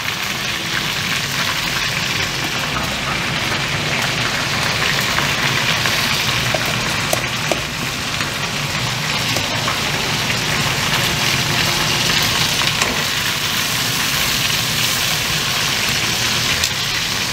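Chicken pieces frying in hot oil in a wok: a steady, loud sizzle with scattered crackling pops.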